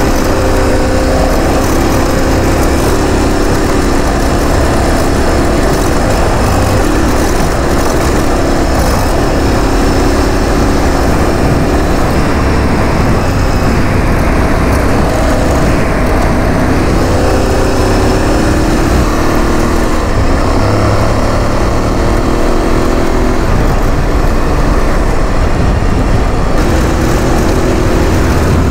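Aprilia Tuareg 660's parallel-twin engine running under way on a gravel road, its note rising and falling a little with the throttle, over a constant rush of wind and road noise.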